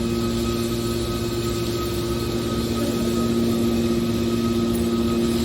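Metal baler machinery running with a steady hum at a constant pitch.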